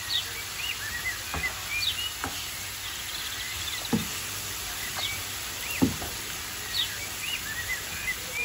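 Onions and tomatoes frying with a steady low sizzle in a frying pan, with a wooden spatula knocking against the pan four times. Short bird chirps repeat about once a second.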